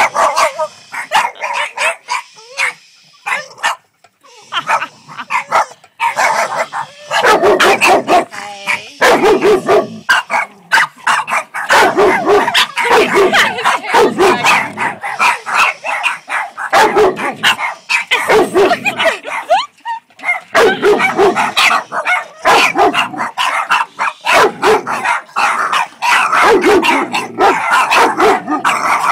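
Several dogs barking in rapid volleys, with short gaps in the first few seconds and then almost without pause.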